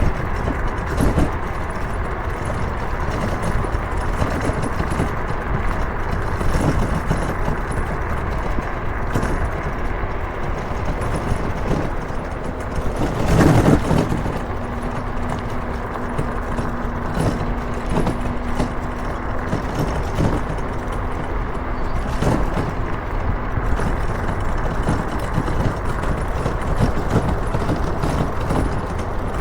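Motorcycle riding at speed: steady engine, road and wind noise on the rider's microphone. There is a loud gust or thump about halfway through, and a faint steady hum runs for about ten seconds around the middle.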